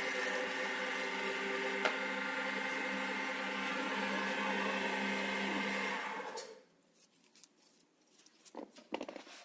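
WS-L1550 small wood lathe's motor running steadily with a hum and a high hiss, and one sharp click about two seconds in. It is switched off about six seconds in and winds down quickly, followed by a few light handling knocks.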